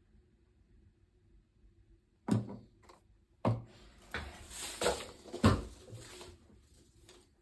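Cardboard box being handled and opened: two sharp knocks, then about two seconds of cardboard rustling and scraping with a few thumps.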